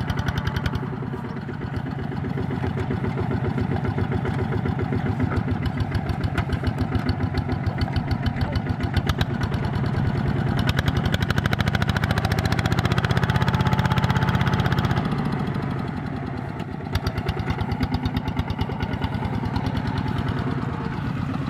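Kubota walking tractor's single-cylinder diesel engine running with a fast, even chug of firing beats. It runs louder for a few seconds past the middle, eases briefly, then picks up its chug again.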